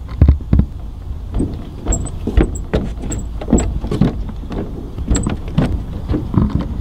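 Irregular knocks, taps and rubbing against a steady low rumble, the sound of a handheld camera being moved and handled.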